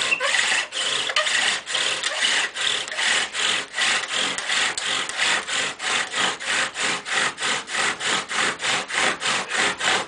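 Bow drill: a Paulownia spindle driven by a bamboo bow grinds in the socket of a Paulownia fireboard. It makes a steady wooden rubbing in even back-and-forth strokes, about four a second, with a short break at each turn of the bow. The strokes quicken toward the end as the drilling builds hot dust in the notch for a coal.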